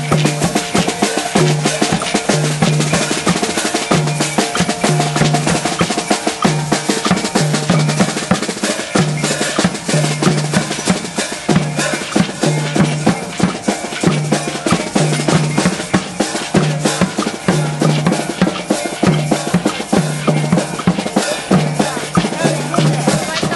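Street percussion group playing a steady, driving marching rhythm: snare drum strokes and rolls over a large two-headed drum beating low about every two-thirds of a second, with hand cymbals clashing.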